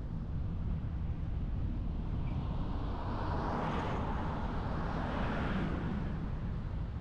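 Steady low road and wind rumble of a car driving, with a rushing noise that swells through the middle and fades again, like another vehicle passing.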